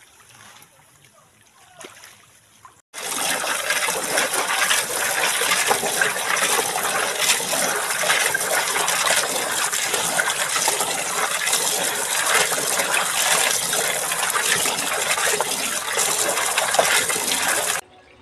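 Freshwater shellfish being washed by hand in a basin of water: a loud, steady rush of churning, gushing water. It starts suddenly about three seconds in and cuts off just before the end, after a softer stretch of faint splashing.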